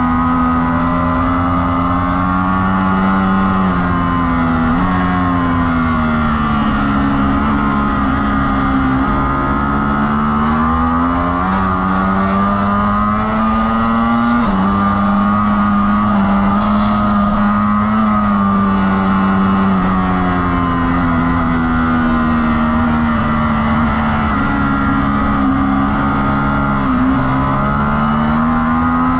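Ducati Streetfighter V4's 1103 cc V4 engine heard from onboard at track pace. The engine note glides up and down through acceleration and braking, with a few abrupt pitch steps at gear changes.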